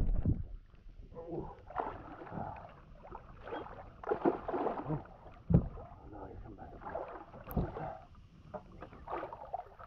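Water splashing and sloshing irregularly as a catfish thrashes in shallow water, with two sharper thumps about five and a half and seven and a half seconds in.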